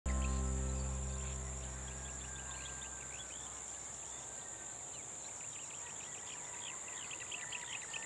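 Rural ambience: a steady high drone of insects with many short bird chirps over it. A deep low boom at the very start fades out over about three seconds.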